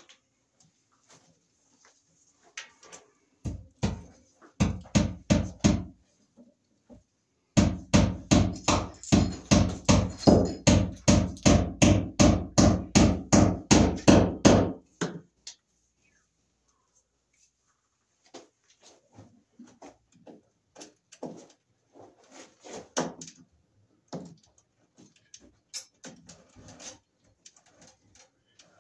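A rapid, even run of sharp knocks, about three or four a second, in two runs: a short one, then a longer one lasting about seven seconds. Scattered lighter clicks and rustles follow.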